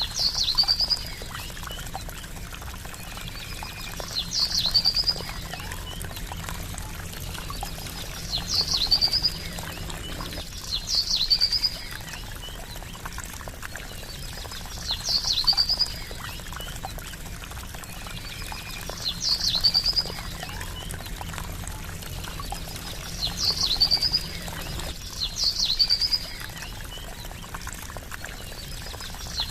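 Steady trickling water with a bird call repeated eight times, every two to four seconds: each call a short high note sliding down into a brief trill.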